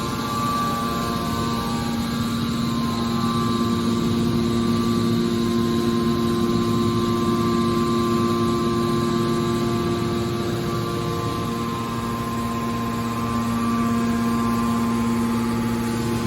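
Mobile metal baler's power unit running steadily, a constant mechanical hum with a few steady tones that briefly weaken about two-thirds of the way through.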